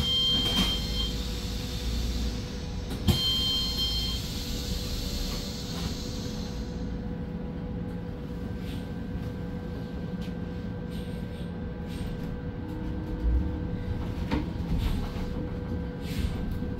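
Cabin noise of a city bus under way: a steady low rumble with a constant hum. Two short high electronic beeps sound, one right at the start and one about three seconds in.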